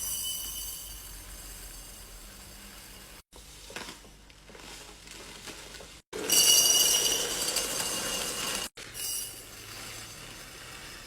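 Containers and jars being handled and set down in a fridge, with clinks and rattles, in several short clips cut one after another. The loudest stretch, from about the middle to near the end, is a busier clatter with a bright ringing edge.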